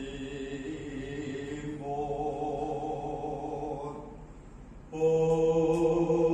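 A man chanting a slow Javanese dalang's song in long held notes, with a pause for breath and then a louder held note from about five seconds in.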